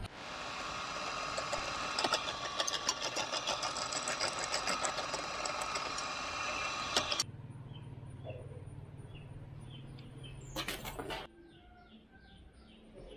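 Bench drill press running with its bit cutting into a small metal mould block, a steady whirring grind with fine rapid ticking. About seven seconds in the cutting stops and a lower motor hum carries on, a brief clatter comes near the end of it, and then it is quiet but for birds chirping.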